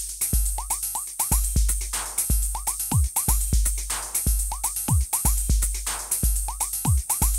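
Live electronic techno/house music from hardware drum machines and synthesizers: a deep kick and bass line with steady hi-hat ticks, a clap about every two seconds, and short chirping synth blips in quick groups of four.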